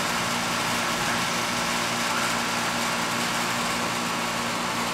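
Outdoor warning sirens sounding far off as a faint steady tone, under a steady rushing noise.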